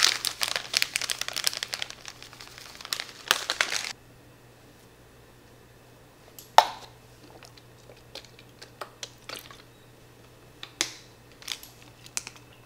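Plastic packaging crinkling and rustling as it is handled, dense for the first few seconds. It then stops, and a few sharp separate clicks and light taps follow, the first the loudest.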